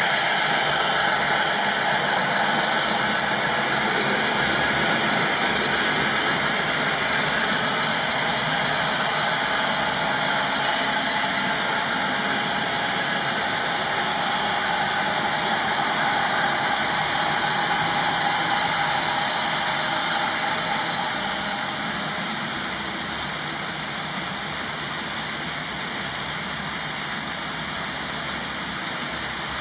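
Model freight train rolling past on the layout: a steady rumble of the cars' wheels on the track, easing a little about two-thirds of the way through.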